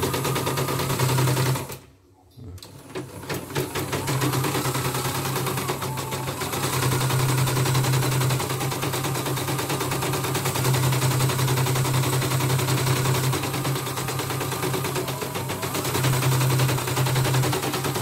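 Computerized embroidery machine stitching at speed: a fast, steady needle clatter over a low motor hum, with a short break about two seconds in before it runs on.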